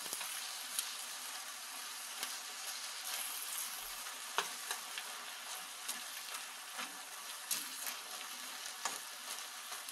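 Chicken breast and mung bean sprouts sizzling in a stainless steel frying pan as they are stir-fried with a wooden spatula, a steady hiss with scattered light clicks and scrapes of the spatula against the pan.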